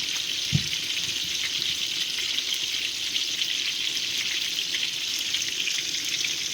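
Chicken browning in a pot on the stove, frying with a steady sizzle and small crackles. There is a single low thump about half a second in.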